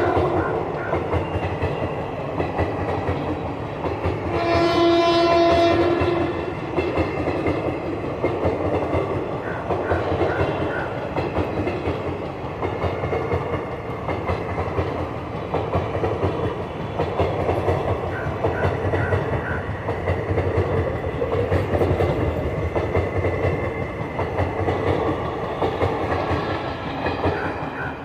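Passenger train coaches rolling past at speed, with a steady rumble and the rhythmic clickety-clack of wheels over the rail joints. A train horn sounds once for about a second and a half, about five seconds in. The rumble drops away near the end as the last coach goes by.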